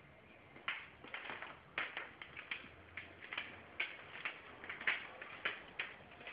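Irregular clicks and taps, about two a second, from a six-month-old basset hound puppy at play, starting about a second in.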